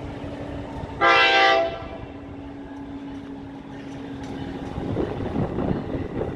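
Tri-Rail commuter train sounding one short horn blast about a second in, lasting under a second. Toward the end the rumble of the approaching train grows louder.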